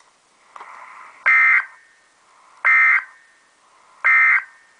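NOAA Weather Radio SAME end-of-message data bursts: three short, identical buzzy digital bursts about a second and a half apart. They mark the end of the alert broadcast.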